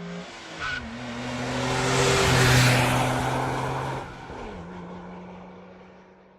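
Sports car driving past: engine and tyre noise swell to a peak about two and a half seconds in, then fade away. The engine note drops in pitch twice, and there is a brief high squeak about 0.7 s in.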